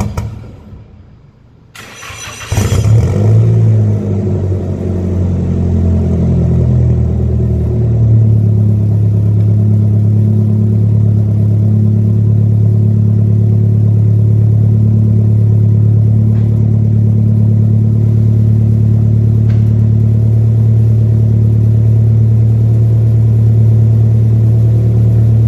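Nissan S15 Silvia's turbocharged SR20DET four-cylinder engine starting about two and a half seconds in after a brief lull. Its idle wavers for a few seconds, then settles into a steady idle.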